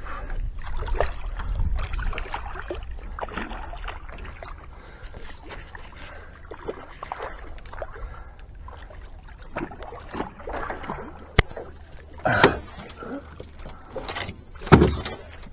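Handling noise while playing a fish from a small metal boat: rustling and small clicks from the rod and spinning reel, with wind rumbling on the microphone in the first couple of seconds. A sharp click and then two louder thumps near the end as the gear knocks against the boat.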